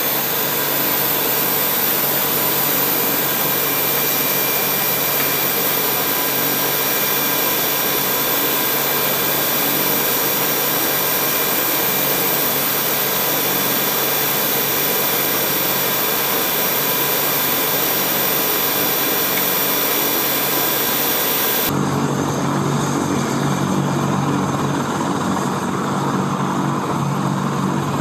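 AH-64E Apache helicopter's twin turboshaft engines running steadily, with several high whining tones over a broad rush. About 22 seconds in, the sound changes abruptly to the lower, rotor-dominated sound of the Apache in flight.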